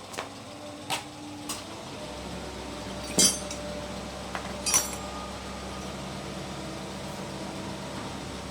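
Metal engine parts and hand tools clinking during motorcycle engine assembly: a few light clicks, then two sharp metallic clinks at about three and four and a half seconds. A steady low machine hum starts about two seconds in.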